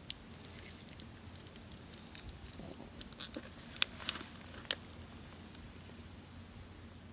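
Coleman camp stove running under a canteen cup of water that is coming to the boil, with a faint steady hiss and scattered light clicks and taps around the middle.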